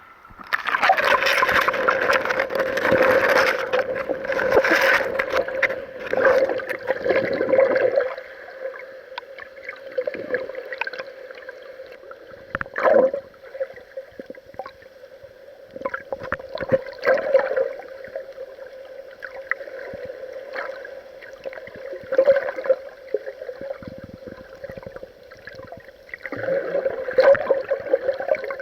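Water sloshing and gurgling against an action camera's waterproof housing at the sea surface, heard through the housing over a steady hum. Scattered clicks and splashes throughout. The churning is heavy for the first several seconds, eases off, then builds again near the end.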